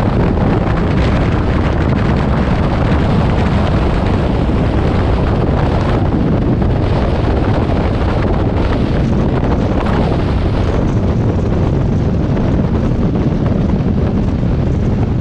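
Light aircraft's engine and propeller running steadily, heard on board with heavy wind noise on the microphone.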